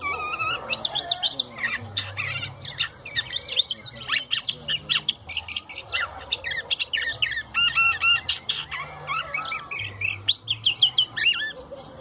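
Caged curve-billed thrasher (huitlacoche) singing a long, fast, varied song of quick whistled and chattering phrases, stopping just before the end.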